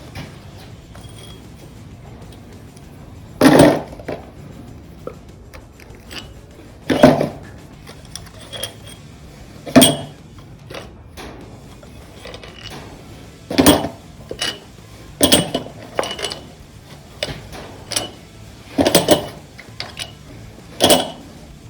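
Sharp metallic clanks and clicks from hand tools and bolts while the cylinder head bolts are being taken out, about ten at irregular intervals.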